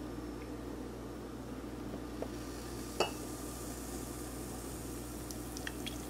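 Glass coffee carafe being handled over a ceramic mug, with one sharp glass clink about halfway through and a few faint ticks, over a steady low hum.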